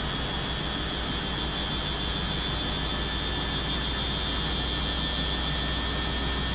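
Washing machine running steadily through its program: a constant low hum with an even high whine over it.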